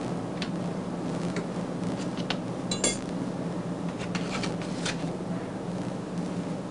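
Small laboratory sample tubes clicking and clinking as they are handled, a handful of sharp ticks with the loudest about three seconds in and a quick cluster a little later.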